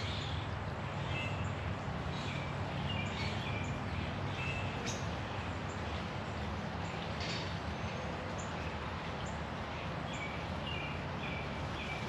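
Small birds giving repeated short chirps over the steady rush of a shallow creek flowing over stones.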